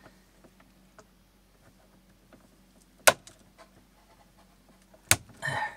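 Cutters snipping inside an electrical panel: two sharp snaps about two seconds apart, with faint handling ticks between and a short rustle of wires near the end.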